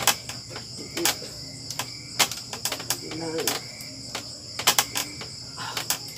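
A steady high chorus of crickets, crossed by sharp knocks and creaks from a homemade wooden sit-up bench as the sit-ups go on, roughly once a second, with two quick pairs of knocks near the end.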